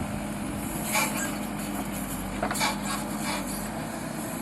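ACE AX-124 backhoe loader's diesel engine running steadily with a constant hum, with three short hissing bursts about one, two and a half and three and a quarter seconds in.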